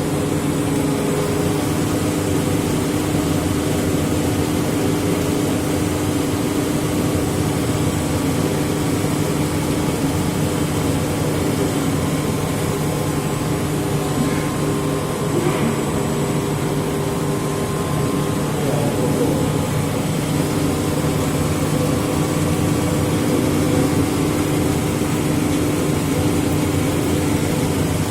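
Fire-fighting pump set running steadily, a constant loud mechanical drone with a low hum that does not change.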